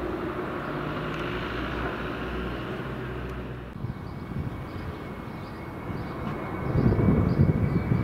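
Ilyushin Il-76MD's four Soloviev D-30KP turbofans on landing approach. After an abrupt change about halfway through, a thin high whine rises slowly in pitch, and near the end an uneven low rumble grows much louder as the jet comes closer.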